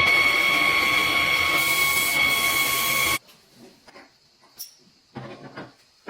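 A power tool running with a steady high whine over a hiss, cut off abruptly about three seconds in, followed by a few faint clicks and scrapes of handling.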